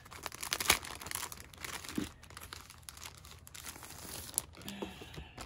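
A clear plastic cellophane bag crinkling and rustling as it is pulled open by hand and slid off a stack of paper card-kit pieces. Irregular crackles, loudest in the first couple of seconds, thinning out later.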